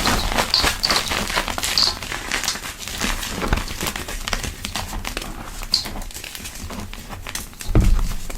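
Soft powder being squeezed and crumbled by hand, giving dense soft crackling with a few brief high squeaks. A heavier crunch comes near the end.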